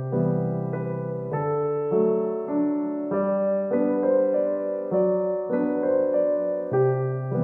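Background piano music: a slow, gentle melody of held notes over sustained bass notes.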